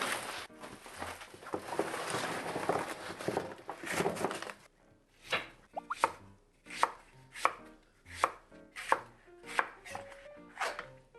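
Knife chopping food on a cutting board: a few seconds of fast, dense cutting, then single evenly spaced strokes, about one and a half a second.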